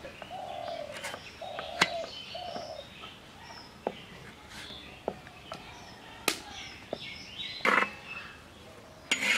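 A metal spatula scrapes against an earthenware roti pan twice near the end as the flatbread is lifted. Before that there are scattered sharp clicks and taps, with birds chirping and three short calls in the first few seconds.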